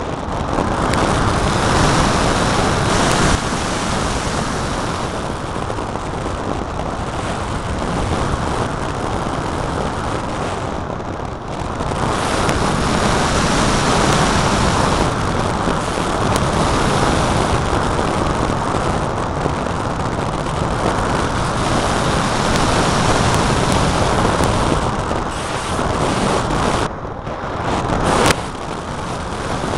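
Airflow rushing over the microphone of a camera riding on an unpowered RC flying-wing glider in fast flight: a loud, steady buffeting of wind noise that briefly drops twice.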